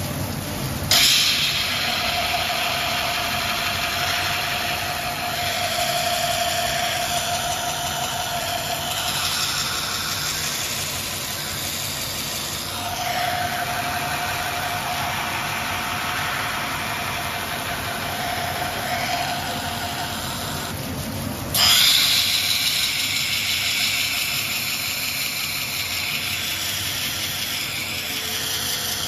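Kaiten wet grinder running: its 36-inch carborundum wheel turning at about 400 RPM in water, a steady mechanical whir and hiss. A mid-pitched hum rises and fades twice, and sudden louder rushes of hiss come about a second in and again some twenty seconds later.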